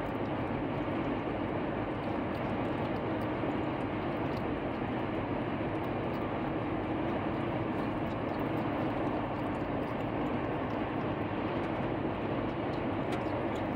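Steady road and engine noise inside the cabin of a moving car, with faint scattered ticks over it.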